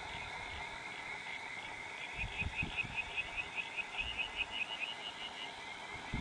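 Night chorus of small calling animals: a steady high trill of rapidly repeating pulses, joined about two seconds in by a second, rhythmic series of chirps. A few soft low thumps sound underneath.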